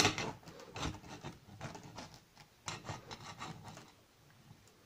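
Kitchen knife sawing through a pineapple's tough, scaly rind and flesh in a run of short strokes, strongest at the start and stopping about three and a half seconds in.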